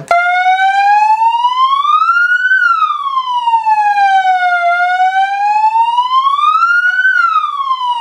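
Three-tone electronic siren playing its fire-engine wail through a 30-watt horn speaker: a loud tone that starts abruptly, then slowly rises and falls, climbing twice to a high peak about four and a half seconds apart.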